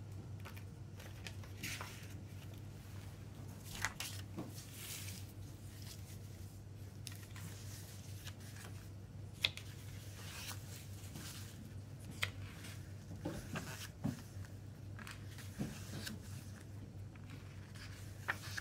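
Paper pages of a CD booklet being turned by hand: soft rustling swishes with a few sharp paper flicks or taps, the sharpest about halfway through, over a steady low hum.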